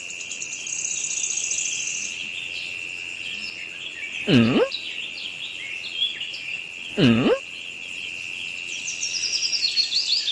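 Birds chirping over a steady high insect trill, with two short calls about four and seven seconds in that swoop down in pitch and back up.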